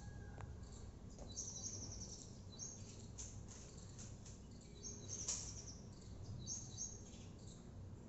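Faint clicking of a plastic Rubik's cube's layers being turned by hand, with a bird chirping in short high bursts several times in the background.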